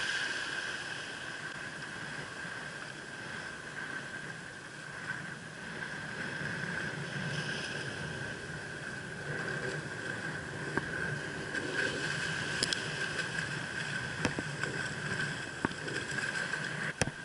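A hooked red snapper splashing in shallow water over the reef as it is reeled in, with wind on the microphone and a steady high whine underneath. A few sharp clicks come near the end.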